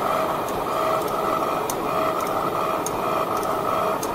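Lathe boring the inside of a steel roller's bore: a steady cutting noise from the tool working in the spinning roller, with a faint tone that comes and goes and a few sharp ticks.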